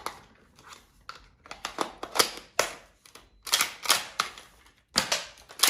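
Sharp mechanical clicks and clacks from an M40A6 bolt-action foam-dart toy rifle being worked by hand. It is a nylon gun with metal bolt and fittings. The clicks come at irregular intervals, some single and some in quick clusters.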